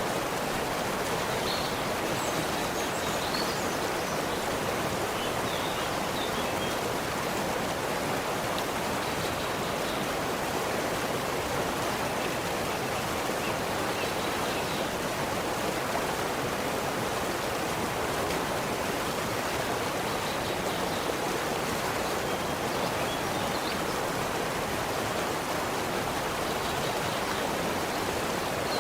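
Forest stream, running water rushing steadily and evenly, with a few faint, brief high bird chirps here and there.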